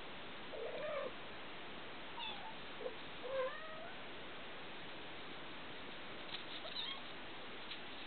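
Young kittens mewing: a series of short, high mews that glide in pitch, the loudest about a second in and around three and a half seconds in, with fainter ones near the end.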